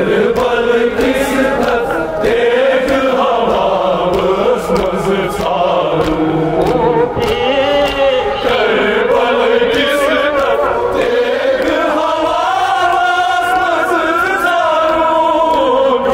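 Voices chanting a Kashmiri nauha, a Shia mourning lament for Imam Hussain, in a slow sung line that rises and falls, with frequent short sharp impacts through it.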